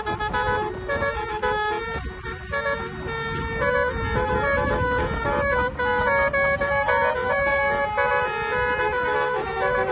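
Basuri multi-tone horn playing a tune of held notes that change every fraction of a second, over a low rumbling noise.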